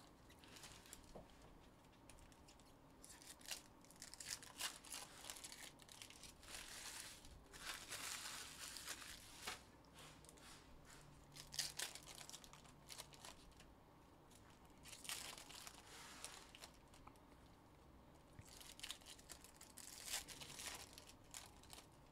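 Trading card pack wrappers being torn open and crinkled, with the cards handled in between: faint, in several separate spells of crinkling a few seconds apart.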